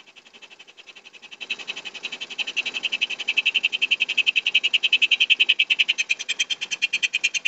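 TVS Jupiter BS6 scooter's single-cylinder fuel-injected engine idling, heard close at the throttle body as a rapid, even ticking that grows louder about a second and a half in. The engine is running down toward a stall on its own, a fault the mechanic traced to mismatched fuel-pump software in the ECU.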